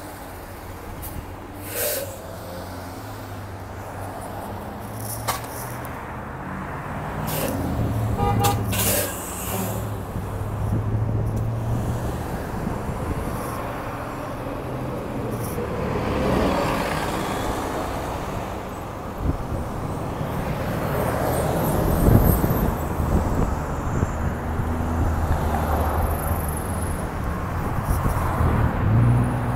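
City transit bus engine running at a stop, with several sharp air-brake hisses and a short beeping about eight seconds in, followed by steady street traffic and a loud thump about twenty-two seconds in.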